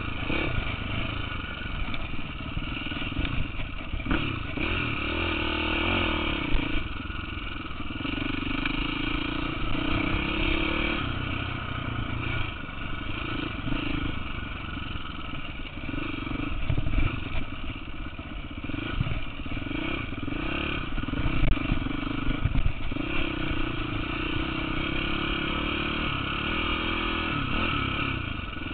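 KTM 450 dirt bike's four-stroke single-cylinder engine being ridden, the engine note rising and falling with the throttle every few seconds, with scattered knocks along the way.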